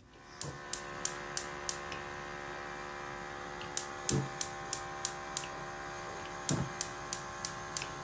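Gas hob's electric spark igniter clicking in three runs of five or six clicks, about three a second, over a steady hum while the burners are alight.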